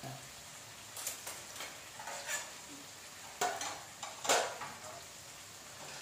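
Chopped onion, tomato and potato frying in a kadai, a steady sizzle broken by about five short, sharp louder pops or clinks, the loudest two near the middle.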